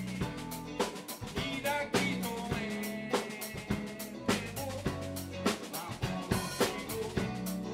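A live rock band playing: a drum kit with snare, rimshots and bass drum keeps the beat, under an electric bass line and a Stratocaster-style electric guitar playing short melodic phrases.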